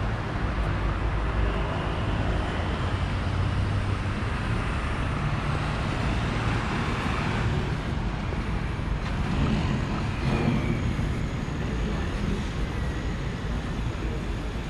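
Street traffic: a steady rumble of cars and other road vehicles running by, with engine hum and tyre noise, a little louder about ten seconds in.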